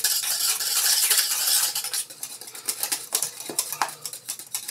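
Wire whisk beating thick pastry cream in a stainless steel saucepan, the wires scraping and clinking against the pan. The whisking is busy for about the first two seconds, then eases to scattered clicks.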